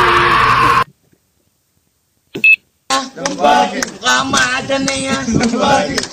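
A loud sound cuts off abruptly under a second in. After about a second and a half of silence comes one short, high beep, then men talking.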